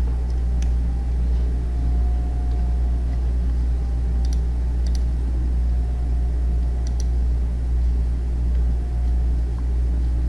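Steady low rumble of background noise on the microphone, with a few faint clicks of a computer mouse.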